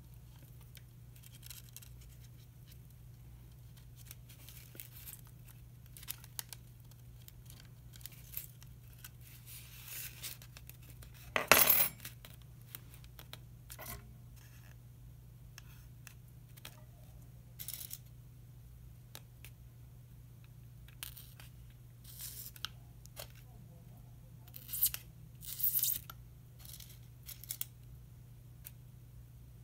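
Light, scattered rustles and taps of paper strips and insect pins being handled on a foam spreading board. About twelve seconds in comes one much louder short metallic clatter as the steel tweezers are set down on the wooden table. A steady low hum runs underneath.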